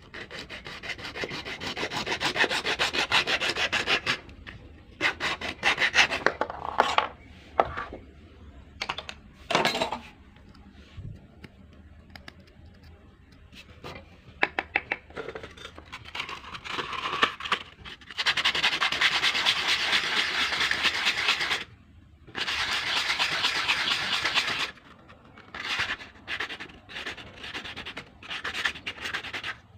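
Short piece of PVC pipe worked by hand. A hacksaw blade saws across its end in quick strokes. Later come long stretches of steady rubbing and short scraping strokes as the cut end is sanded on sandpaper.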